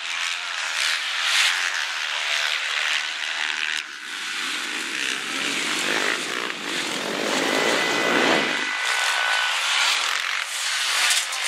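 Several supermoto motorcycles racing past, their engines revving high and rising and falling as they ride over a dirt jump, with the sound swelling fuller and louder in the middle as bikes pass close.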